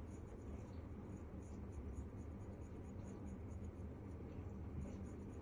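Faint scratching from a metal ear pick scraping earwax inside the ear canal, with small irregular clicks.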